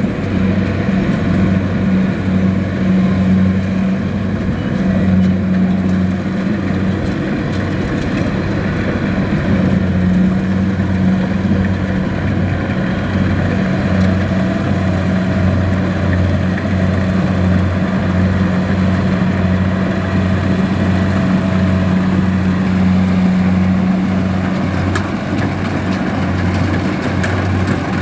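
Kubota rice combine harvester's diesel engine running steadily at working speed while it cuts through the rice, a low even drone.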